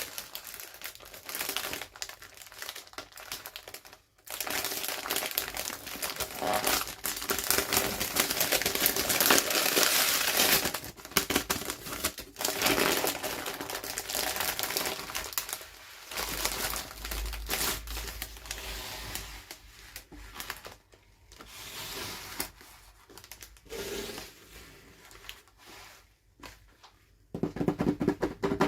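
Toy packaging being handled and opened: irregular crinkling and rustling with occasional tearing, in quick uneven bursts with short pauses.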